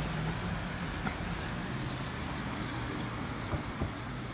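Brushless motor and propeller of an H-King Aquaholic V2 RC deep-vee boat running at low throttle as the boat pulls slowly away from the bank: a steady low hum that drops a little in pitch about a second and a half in.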